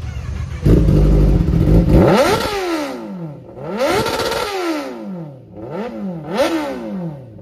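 Kawasaki ZX-10R inline-four sportbike engine revved at a standstill: it jumps loud less than a second in, then gets four sharp throttle blips, each rising in pitch and falling back toward idle, the last two in quick succession. Shown off as a loud bike.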